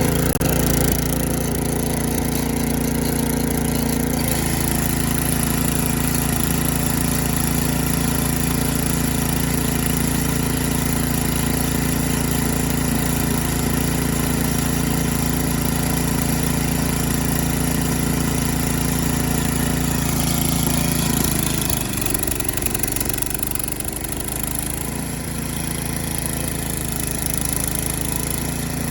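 Gas-powered garden tiller's small engine running steadily as it tills soil, its note shifting about four seconds in and dropping and roughening near the end.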